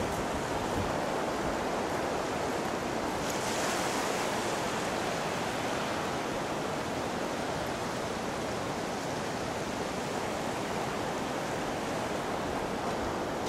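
Small sea waves breaking and washing up onto a sandy beach: a steady, even hiss of surf.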